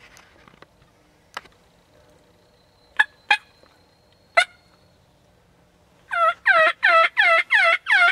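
Wild turkey calling: a few short, sharp clucks, then about six seconds in a loud run of seven yelps, each note falling in pitch.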